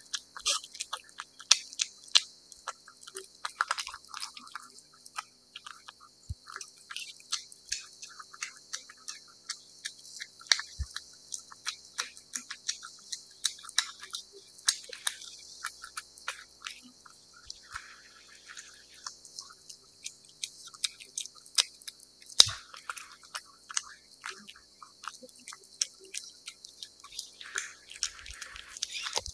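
Cat eating wet cat food: a quick, irregular run of wet chewing clicks and smacks, with a few sharper ones now and then.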